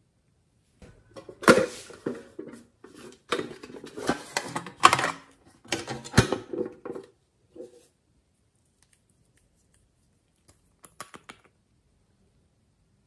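Close-up handling of a character-shaped plastic nail polish bottle with a metal cap: a busy run of clicks, taps and rattles for several seconds, then a few fainter clicks near the end.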